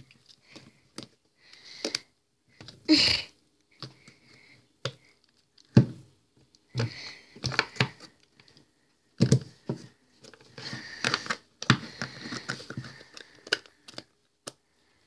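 Slime being squeezed and pressed into a small plastic tub by hand to make fart noises: irregular wet squelches and pops.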